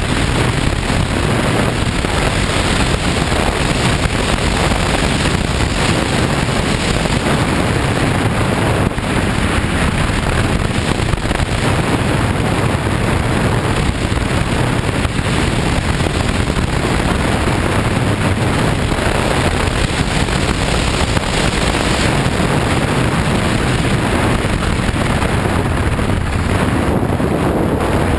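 BMW F 800 GS parallel-twin motorcycle riding on a gravel road: steady, loud wind noise on the microphone, with the engine and the tyres on gravel beneath it.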